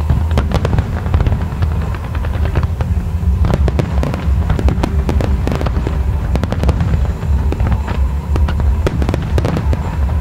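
Fireworks display: a rapid, irregular string of sharp bangs and crackles over a continuous deep rumble.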